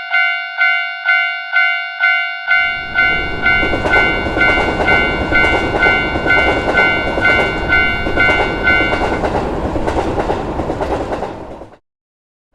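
Japanese railroad crossing warning bell ringing, just under two strokes a second, stopping about nine seconds in. From about two and a half seconds in a train passes, its wheels clacking over the rail joints, until the sound cuts off suddenly shortly before the end.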